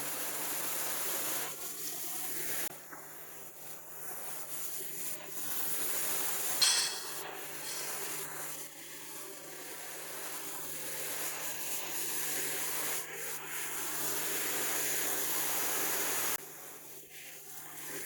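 Steady hiss of an orbital automatic TIG welder's arc and argon shielding gas while it welds a tube end into its tube block, under a steady low hum. The hiss briefly rises about seven seconds in and drops away near the end.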